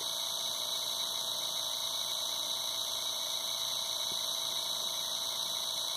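24 V 250 W DC scooter motor from a Razor E300 running steadily at mid speed, about 1,700 rpm, under no load on a PWM speed controller: an even, unchanging high-pitched whine.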